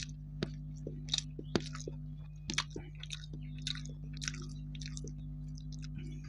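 A person chewing a mouthful of rice with wet smacking and clicking of the lips and tongue, in a string of short irregular smacks. A steady low hum runs underneath.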